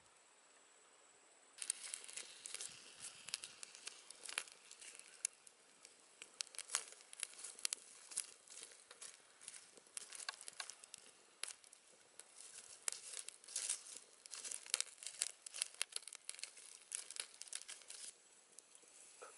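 Small fire of dry twigs and sticks crackling, with dense irregular pops and snaps that start abruptly about a second and a half in and die down near the end.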